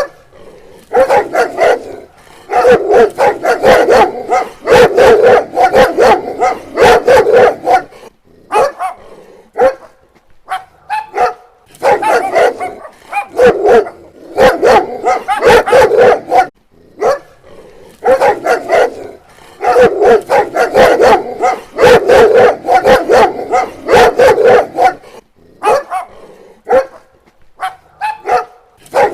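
Dog barking loudly in rapid volleys several seconds long, separated by short pauses with only a few scattered barks.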